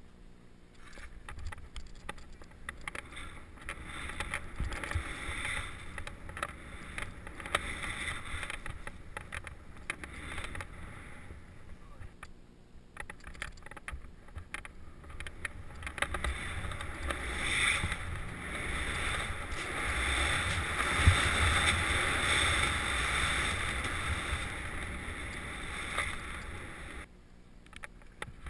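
Skis hissing through deep powder snow, swelling and fading with each turn, then a longer, louder stretch of snow hiss and wind rush on the camera's microphone that cuts off shortly before the end.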